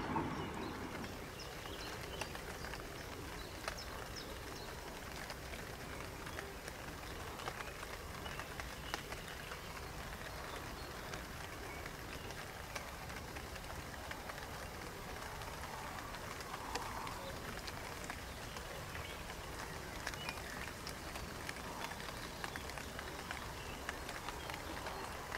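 Faint outdoor ambience: a steady low rumble with many small scattered ticks and a few soft, faint calls.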